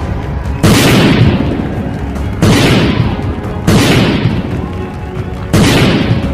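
Four explosion booms from a cartoon fight, each hitting suddenly and dying away over a second or so, spaced roughly one and a half to two seconds apart over background music.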